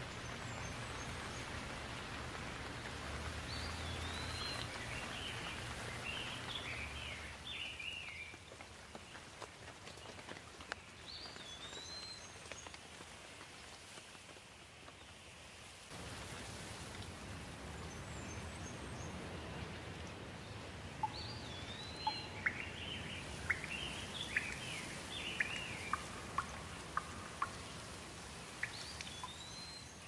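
Steady rain with a songbird singing over it, repeating the same short whistled phrase followed by a run of chirps every ten seconds or so. The rain's hiss steps up abruptly about halfway through. Sharp drops tick close by in the second half.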